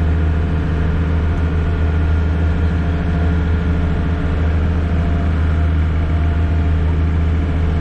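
Engine of a small river water bus running steadily under way, a loud, even low drone heard from the open stern deck.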